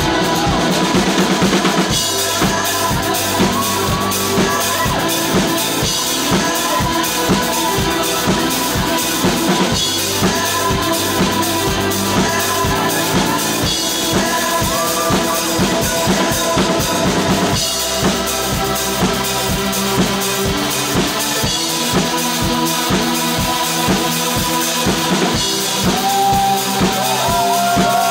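Live band playing loud music, a steady drum beat of bass drum and snare carrying it under pitched instruments.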